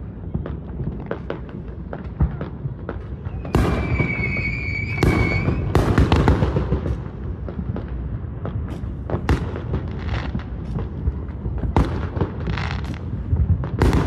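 Aerial fireworks going off continuously: a low rumble of booms with many sharp pops, cracks and louder bangs. There is a high whistle for about two seconds starting about three and a half seconds in.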